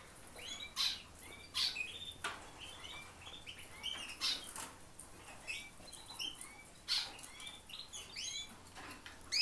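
Canaries giving many short, high chirping calls, with several brief sharp noises among them.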